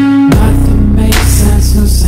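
Soundtrack music: an electronic song with a held note at the start, then a deep, steady bass line and drum hits coming in about a third of a second in.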